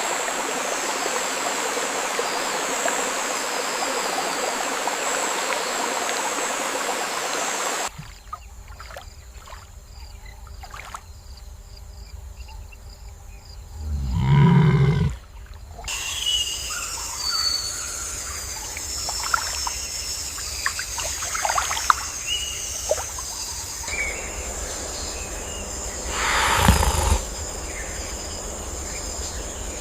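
Outdoor nature ambience in changing scenes. There is an even rush of running water for the first eight seconds. It then drops to a quieter background with one short, loud, low sound about fourteen seconds in. From the middle onward come a steady high insect-like drone with scattered chirps and another brief loud sound near the end.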